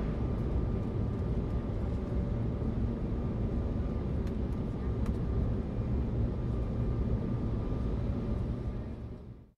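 Steady low rumble with a faint high hum over it and a few faint clicks. It begins suddenly and fades out near the end.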